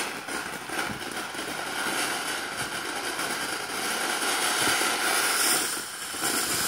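TNT Crystal Fountain, a small box-type firework fountain, spraying sparks with a steady rushing hiss that dips briefly about six seconds in and then picks up again.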